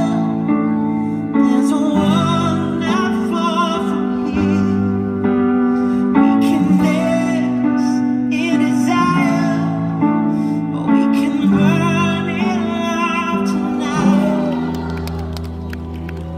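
Music: a woman singing with vibrato over a held chordal accompaniment.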